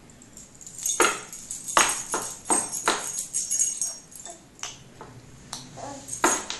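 Baby shaking a rattle toy with shiny metal pieces, jingling in a string of irregular shakes, the busiest stretch about a second into the sound and a few more shakes near the end.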